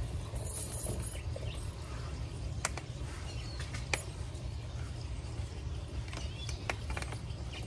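Metal hanging-basket chain clinking, with a few sharp clicks as its hooks are fitted to the pot's rim, over a steady low rumble.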